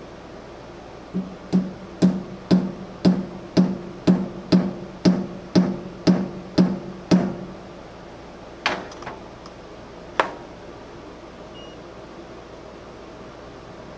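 A run of about a dozen evenly spaced ringing taps, roughly two a second, each carrying the same low tone, followed a little later by two or three more strikes and one last sharp knock.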